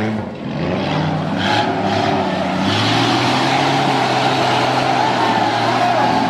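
Off-road 4x4's engine running under load as it climbs out of a muddy creek crossing, the engine note getting louder and rougher about three seconds in.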